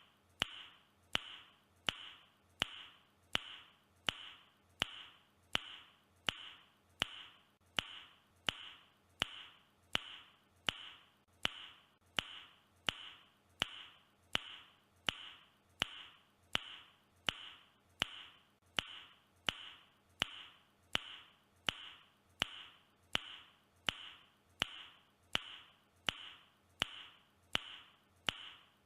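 A man's tongue click repeated on an even loop, about three clicks every two seconds, each sharp click followed by a short fading tail.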